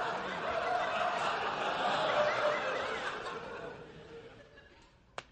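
Studio audience laughing, dying away over about four seconds, with a single faint click near the end.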